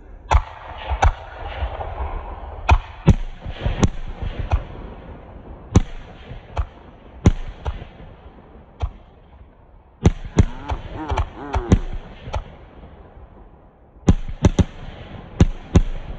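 Consumer fireworks going off: a string of sharp bangs in irregular clusters, with pauses of a second or two between the groups.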